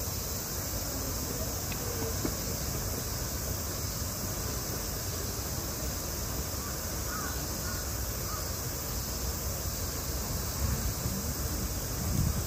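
Outdoor ambience with a few faint crow caws over a steady high-pitched hiss and a low background rumble.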